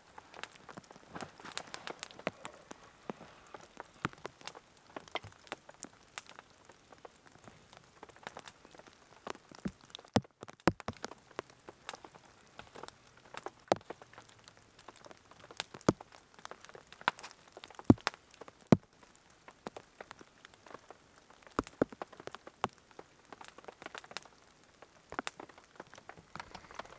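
Raindrops tapping irregularly on a tarp shelter, with a small campfire crackling: scattered sharp ticks and pops, a few a second.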